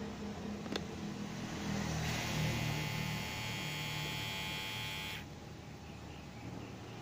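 Enchen Hummingbird cordless hair clipper running: the steady electric hum and buzz of its motor and blade. A short click comes near the start, the buzz gets brighter and louder about two seconds in, then drops quieter about five seconds in.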